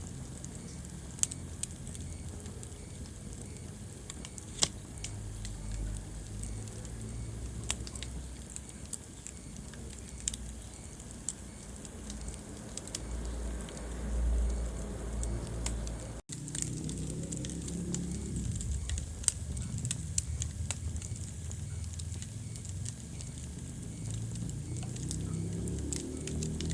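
Wood fire burning in a fireplace: a low rumble of flames with scattered crackles and a few louder pops. The sound cuts out for an instant a little past halfway.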